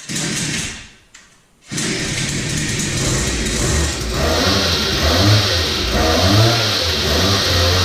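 Fit Right FRP DB002 mini bike's 50cc two-stroke engine starting: a short noisy burst, a brief lull, then about two seconds in it catches and keeps running, its pitch rising and falling unevenly as it is revved.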